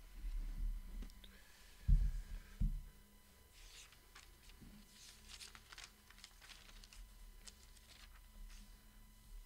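Pages of a Bible being leafed through at a wooden lectern: a run of short, soft paper rustles through the second half. They come after a few dull knocks in the first couple of seconds as the book is handled on the lectern.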